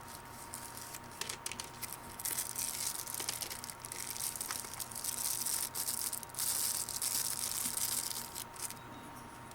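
Packaging rustling and crinkling with a few light clicks as a boxed folding pocket knife is unpacked and handled.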